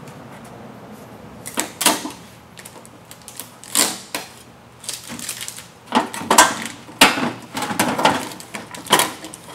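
Tape being pulled off a rolling shutter housing and the hood cover handled and lifted off it: several short, irregular peeling and clattering noises.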